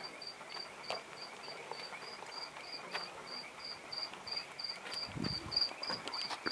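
An insect chirping steadily and evenly, about three short high chirps a second, with a few faint clicks and a low thump about five seconds in.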